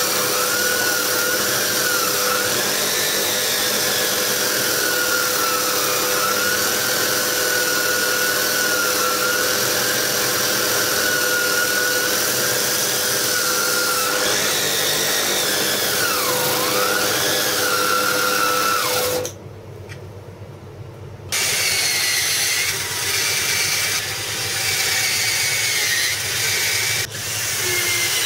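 An angle grinder spinning a spindle-sander drum runs steadily, with a high whine that wavers in pitch, and cuts off about two-thirds of the way through. After a short pause a cordless drill runs in several short bursts, drilling pilot holes for screws.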